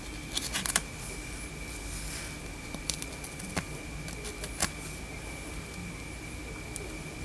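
A few sharp clicks and taps of objects being handled: a quick cluster about half a second in, then single clicks spread through the rest. A faint, steady, high-pitched tone sounds underneath.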